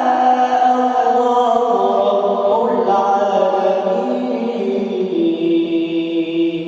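A male reciter chanting the Quran unaccompanied in melodic tajweed style, drawing out long held notes that step between pitches.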